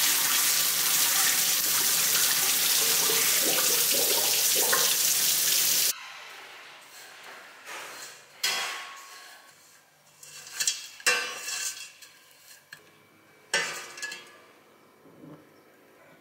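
Water running steadily from a kitchen faucet into a sink, cut off suddenly about six seconds in. Then stainless steel pots and lids clanking and knocking against each other and on a gas hob, a few sharp clinks at a time.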